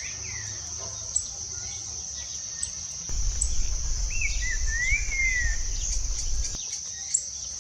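Trinca-ferro bico-de-pimenta, a saltator, singing clear whistled notes that slide up and down: a brief note at the start, then a short phrase about four seconds in. A steady high insect buzz runs underneath.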